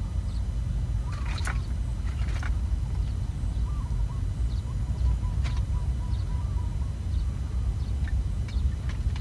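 Steady low rumble of wind on the microphone, with faint bird chirps and a few light clicks.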